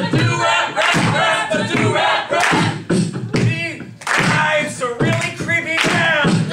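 Several voices chanting a rap together in a steady rhythm over a beatboxed beat.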